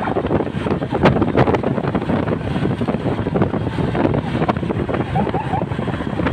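Wind buffeting the microphone over the road noise of a moving vehicle, a rough, steady rush with no siren sweep.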